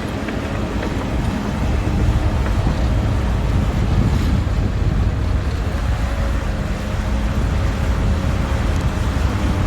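Caterpillar D5G XL crawler dozer's diesel engine running steadily as the machine works, a low rumble with faint engine tones, with wind buffeting the microphone.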